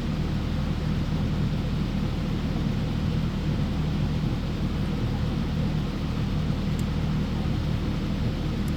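Steady low mechanical hum over an even hiss, unchanging throughout, from background machinery.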